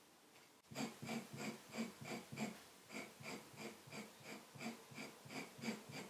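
A broad-bladed leather knife shaving the edge of a thin leather strip in short, even scraping strokes, about three a second. The strokes start about a second in.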